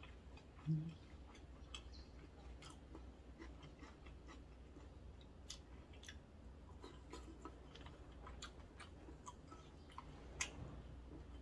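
A person chewing a mouthful of kimchi pancake: faint, scattered wet mouth clicks and smacks. There is a single low thump about a second in and a sharper click near the end.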